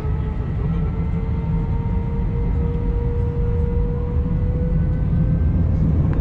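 Airbus A321 jet engines heard from inside the cabin: a steady low rumble with a whine that rises slowly in pitch as the engines spool up for takeoff, the whine fading about five seconds in.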